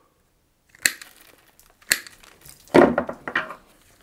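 Cable-cutter jaws of electrician's multi-pliers cutting through the stranded copper cores of PVS flexible cable: two sharp snips about a second apart, then a longer crunching cut about three seconds in.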